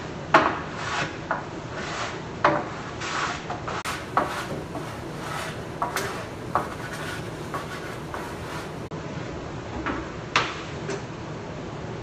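Irregular knocks and scraping rubs, a dozen or so, with a quieter stretch near the end: objects being moved and handled.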